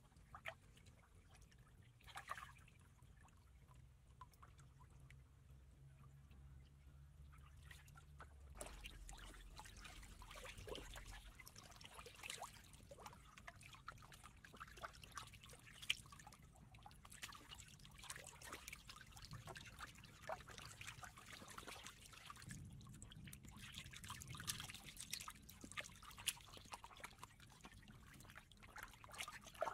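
Faint trickling and dripping of shallow water with scattered small splashes, irregular throughout and busier from about eight seconds in.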